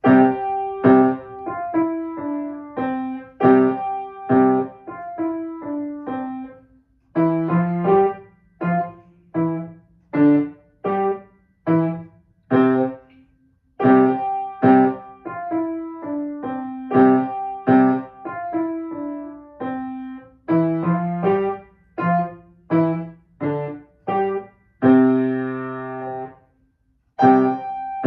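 Piano playing a short piece: a melody over a lower part in phrases, beginning after a silence, with a held chord about 25 seconds in, a brief pause, then the playing resumes.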